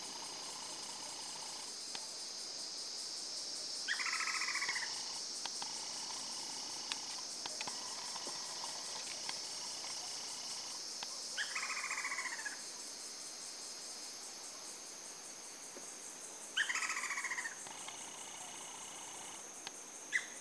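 Lineated woodpeckers calling: three rapid, pulsing calls that fall in pitch, each about a second long and several seconds apart. A steady high insect buzz runs underneath.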